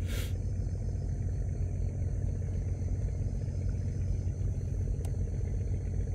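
A small boat engine running steadily at low speed, an even low hum. A brief rush of noise right at the start and a single sharp click about five seconds in.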